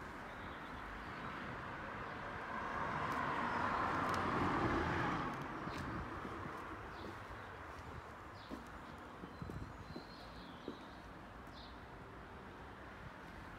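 Outdoor background with a passing vehicle that swells and fades about three to five seconds in, a few light clicks, and faint bird chirps later on.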